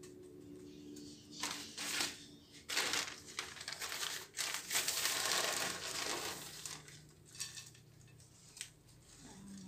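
Dry coconut husk chips rustling and crunching as a hand presses them in around an orchid in its pot. The sound comes in several irregular bursts, the longest and loudest about halfway through.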